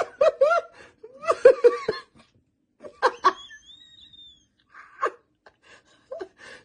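A person laughing hard in repeated bursts of short, pitched, gasping breaths, with a faint thin high squeal about three seconds in.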